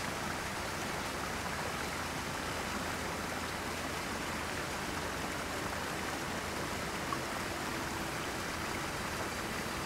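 Steady rush of flowing water where rice-field runoff discharges into a swift river.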